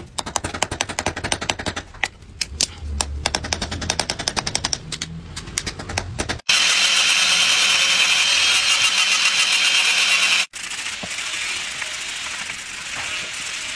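Rapid light hammer taps, several a second, peening the pins that fix wooden handle scales to a forged knife's tang. After a sudden cut comes about four seconds of loud, steady, high-pitched grinding noise with a whine, then a softer steady scraping noise.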